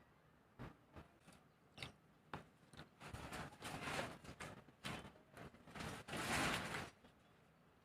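Close-up eating sounds: wet chewing and lip smacking in short clicks, with longer noisy stretches about three seconds in and again near six seconds.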